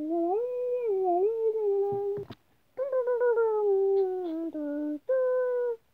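A child humming a wordless tune in three phrases: a wavering first phrase, a second that slowly falls in pitch, and a short held note near the end. A small knock sounds in the pause about two seconds in.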